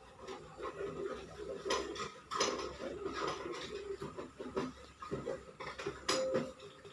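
Metal spoon and small brass cup clinking and knocking now and then as water is spooned to a baby, with light clatter of brass utensils.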